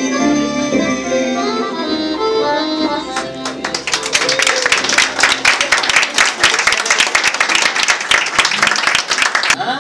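The last notes of a small live band with double bass, then audience applause that builds about three seconds in and cuts off suddenly near the end.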